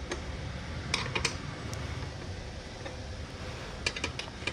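Light metallic clicks and taps of a spanner working the rack clamp bolts: one at the start, two about a second in, and a quick cluster near the end, over a steady low hum.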